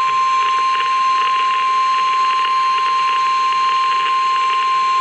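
NOAA Weather Radio warning alarm tone: a single steady, loud tone of about 1 kHz, heard over radio hiss. It is the attention signal that a warning, here a severe thunderstorm warning, is about to be broadcast.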